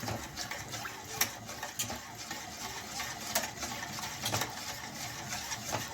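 A spoon or whisk stirring a thickening béchamel sauce in a pan, with a few light taps of the utensil against the pan.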